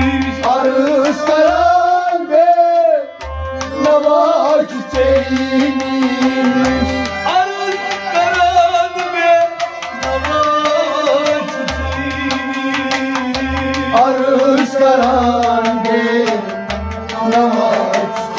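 Kashmiri Sufi devotional song: a man singing a melody with harmonium and rabab accompaniment, with low drum strokes recurring about once a second underneath.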